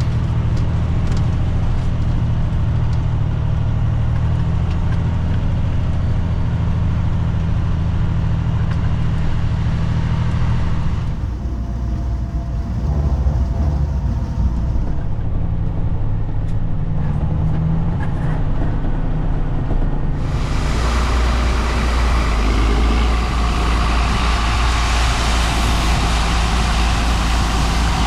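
Engine of a large farm machine running steadily under load. The sound shifts about eleven seconds in, and from about twenty seconds in a loud, even rushing noise joins the low engine rumble.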